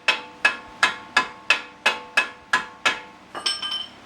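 Steady hammer blows on metal, about three a second, each ringing briefly: knocking at a stuck part of a car's brake assembly to free it. The blows stop about three seconds in and a short metallic rattle follows.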